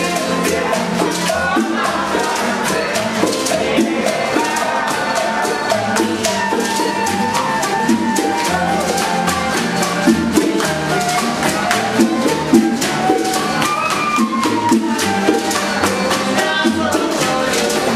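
Cuban band playing live: strummed acoustic guitars, upright bass, flute and maracas shaking a steady rhythm, with singing.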